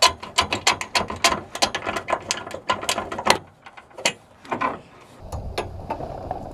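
Metal electrical-conduit poles of a folding blind frame clicking and rattling against each other and their bolted cross joint as they are worked by hand, in a quick run of sharp clicks that thins out after about three seconds. About five seconds in, a steady low rumble takes over.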